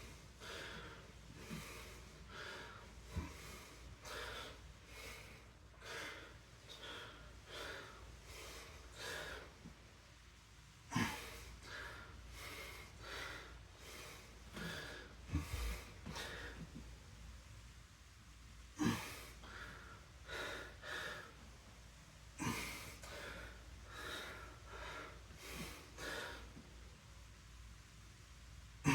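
A man breathing hard and rhythmically, with sharp exhales, while straining through a set of single-leg deadlifts. There are a few sharp knocks, about three in all, spaced several seconds apart.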